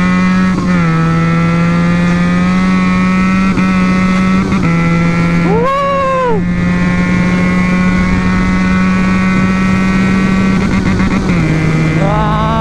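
Benelli motorcycle with an aftermarket exhaust running at road speed, a steady engine note that steps in pitch a few times as the rider works the throttle and gears. A short rising-and-falling tone cuts in about six seconds in.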